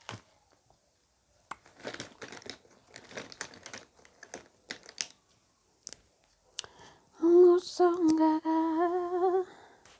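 A woman hums a held note for about two seconds near the end, its pitch steady with a slight waver. Before it, scattered light clicks and rustles of small items being handled.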